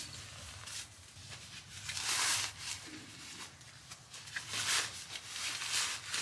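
Bedding and a padded fabric bag rustling as they are handled and pushed into place on a camp cot, in several short swishes.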